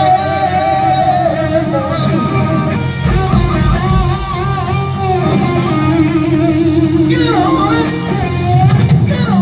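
Live rock band playing loudly, with electric guitar to the fore over bass and drums.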